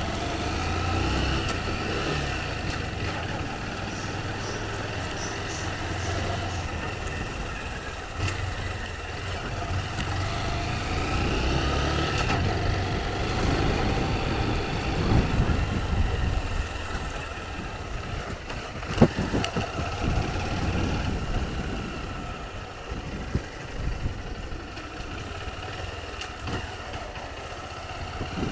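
Honda CG Fan 160 single-cylinder four-stroke motorcycle engine running on the move, its pitch rising and falling with the throttle, over road and wind noise. A sharp knock about 19 s in and a few small knocks near the end are the front-end rattle, which the rider finds is still there after the front clips were tightened.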